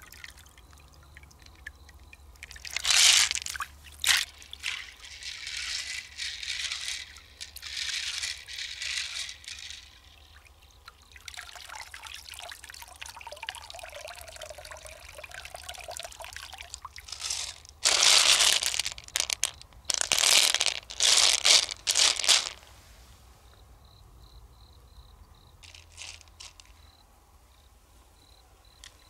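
Stream water splashing and pouring off an opened mussel shell full of pearls as it is dipped and rinsed, in several bouts of sloshing; the loudest run of splashes comes past the middle, and it settles to a faint trickle near the end.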